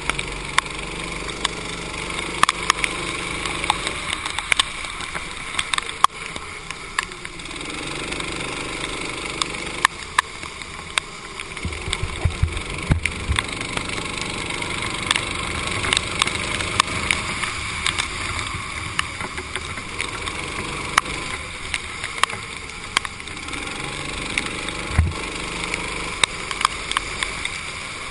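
Racing kart engine heard from on board, its pitch rising and falling as the kart accelerates and lifts off through the corners. A steady hiss of wind and wet-track spray runs under it, with frequent sharp ticks.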